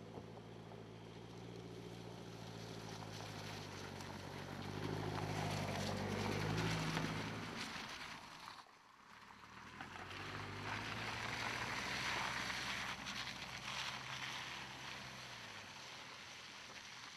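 Mercedes-Benz C-Class All-Terrain's four-cylinder engine running steadily as the car drives along a dirt track, with tyre noise on the dirt and leaves. It grows louder as the car comes close, cuts off abruptly about nine seconds in, then swells again and fades as the car drives away.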